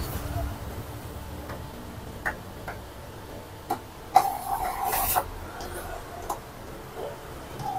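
Epson L120 inkjet printer mechanism clicking several times, with a short motor whirr about four seconds in as it prepares to print.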